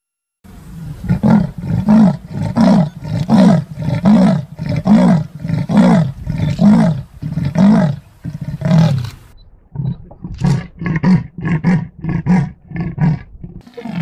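Leopard giving its sawing call: a series of hoarse, rasping grunts at about one and a half a second, like a saw drawn through wood. It breaks off around nine seconds in, then starts again with a faster run of shorter strokes.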